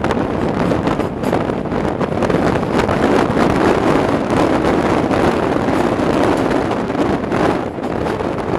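Wind buffeting the microphone held out of a moving passenger coach's window, over the steady rumble of the train running along the track.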